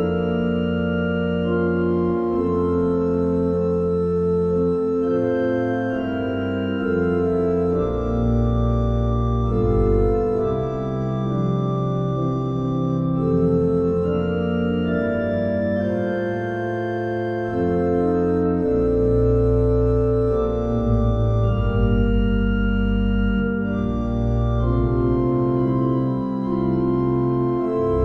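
Organ playing a slow closing voluntary: held chords that change every second or two over deep sustained bass notes.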